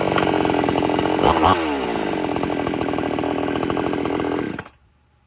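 Two-stroke gasoline chainsaw running, with a brief rev about a second in that falls back, then running steadily until it cuts off abruptly near the end.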